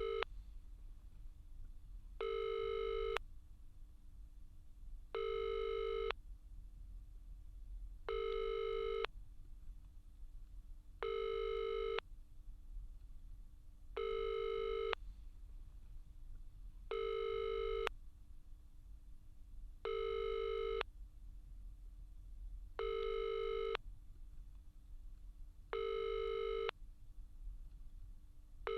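Telephone ringback tone, the ringing a caller hears on the line: a steady electronic tone about a second long, repeating every three seconds, about ten times, over a low line hum.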